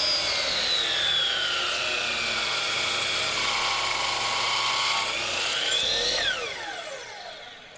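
12-inch chop saw motor and blade whining, the pitch sliding steadily down for about five seconds, rising briefly about six seconds in, then falling quickly and fading as the saw spins down.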